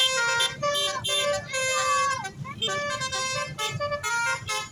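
A bus's Basuri telolet horn playing a quick tune: short horn notes that jump in pitch several times a second, with one note sliding down about two seconds in.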